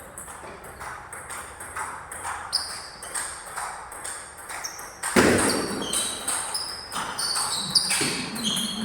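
Table tennis rally: the plastic ball clicking off the table and the bats about twice a second in an even rhythm, with one louder hit about five seconds in.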